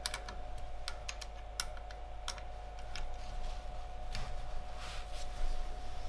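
Allen key clicking and ticking in the hex socket screws of a halberd head as the screws are snugged up. The small metal clicks come irregularly, closely spaced at first and sparser later, over a faint steady hum.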